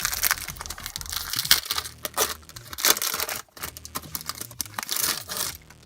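Foil Pokémon booster pack wrapper crinkling and tearing as it is opened, with a short pause about three and a half seconds in and the crackling dying away near the end.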